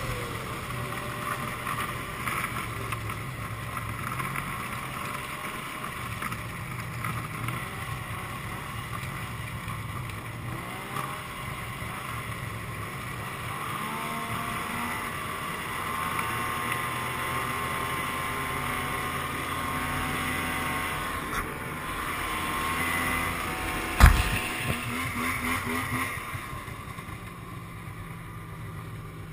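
Yamaha snowmobile engine running under way, its pitch rising and falling with the throttle. A single sharp knock comes a few seconds before the end, and the engine then quietens.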